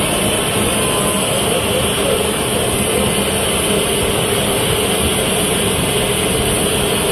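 Heavy engines running, loud and steady, with a strong high-pitched hiss over them and no breaks.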